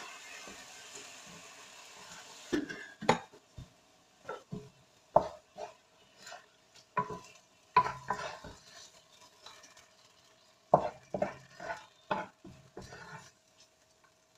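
A steady hiss over the wok and stove stops abruptly about two and a half seconds in. After that, a spatula scrapes and knocks against the wok in irregular strokes as the cooked eggplant is dished out onto a plate.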